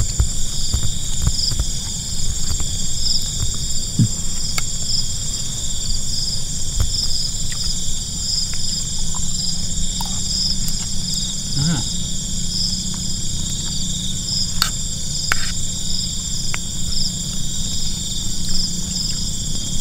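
Steady outdoor insect chorus: several high, continuous trilling tones, one of them pulsing, over a low rumble, with a few light clicks scattered through.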